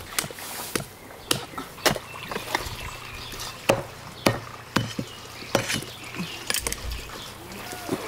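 Big kitchen knife cutting off a large fish's head: an irregular series of sharp cuts and knocks as the blade chops through the flesh and backbone behind the gills.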